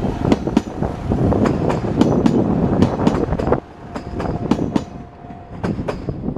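JR Shikoku 2600 series diesel limited express train passing at speed, its wheels clacking over the rail joints in quick clicks over a heavy rumble. The rumble drops off abruptly a little past halfway as the end of the train goes by, leaving softer, receding clacks.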